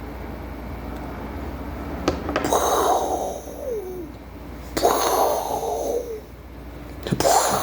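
A man's breathy mouth noises: three falling whooshes, a few seconds apart, over a steady low hum.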